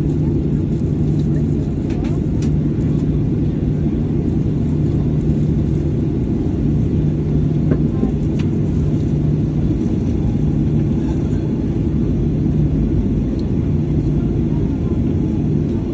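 Steady low rumble of cabin noise inside a Boeing 737-800, from its CFM56 engines and air-conditioning running, with a low hum that wavers slightly.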